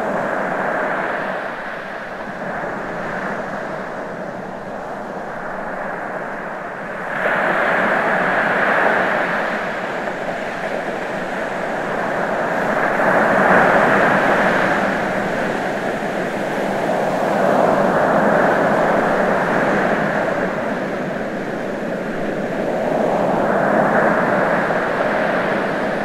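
Ocean surf, waves washing in and drawing back in slow swells that rise about every five or six seconds.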